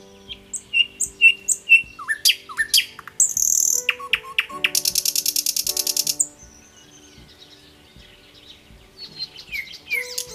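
Small birds chirping in short rising and falling calls, with a fast trill of about a dozen notes a second lasting over a second around the middle. Soft background music with held chords sounds underneath.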